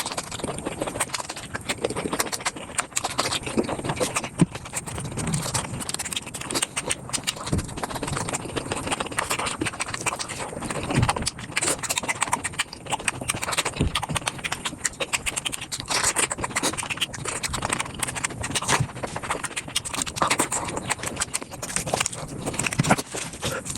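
Close-miked eating sounds played back at five times speed: a dense, unbroken run of rapid crunches, clicks and wet chewing as bamboo shoots are bitten and chewed.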